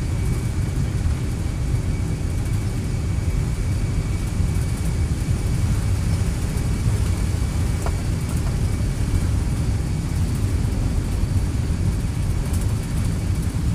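Steady low rumble of jet aircraft in flight, even and unbroken throughout.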